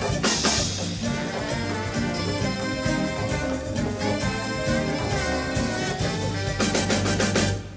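Live big band playing jazz: saxophones, trumpets and trombones in full ensemble over bass and drums, with a run of short punched accents near the end.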